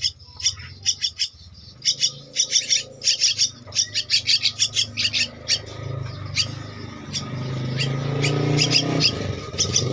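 Two-week-old Javan myna chicks giving harsh begging calls, short sharp chirps in quick runs of several a second. A low steady hum rises under them in the second half.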